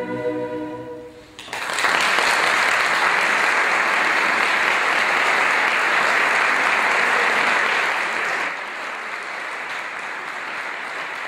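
A choir's final held chord fades away, then applause breaks out about a second and a half in and carries on steadily, somewhat quieter over the last few seconds.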